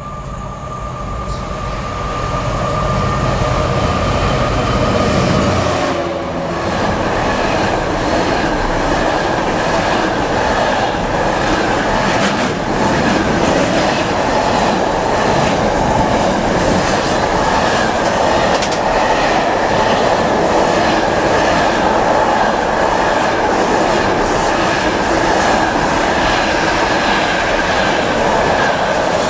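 DRS freight locomotive and intermodal container train passing. The locomotive's engine grows louder over the first few seconds as it approaches and goes by, then comes a steady rush of container wagons rolling past with clickety-clack from the wheels over the rail joints.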